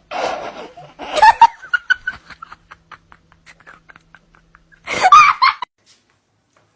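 A person laughing hard: a breathy burst, then a loud outburst and a long run of short repeated laughs, and a last loud burst of laughter about five seconds in, cut off suddenly.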